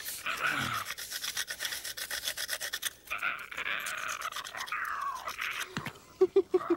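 Metal scraped rapidly back and forth against rock in quick, even rasping strokes, as if being sharpened or sawn on the stone. Near the end come a handful of short, loud, low-pitched pulses.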